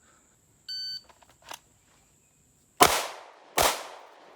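A shot timer beeps once. About two seconds later a pistol fires two shots less than a second apart, each ringing out: the first pair of the draw-and-fire drill.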